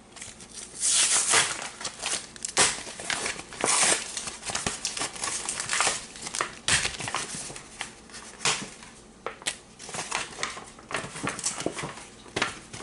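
Plastic blister packaging of a Pokémon card three-pack being crinkled and torn open, an irregular run of crackles and rips.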